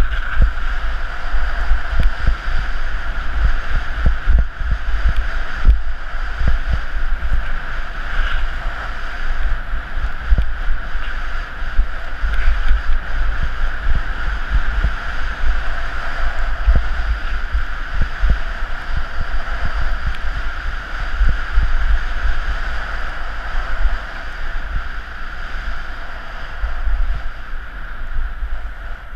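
Wind buffeting the microphone of an action camera worn by a skier on a downhill run, with a steady hiss of skis sliding over groomed snow.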